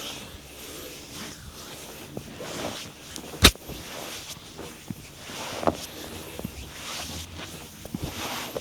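Hands working on a body during a massage, rubbing and pressing on skin with scattered soft taps. About three and a half seconds in comes one loud sharp snap, the loudest sound, and a smaller one follows near six seconds.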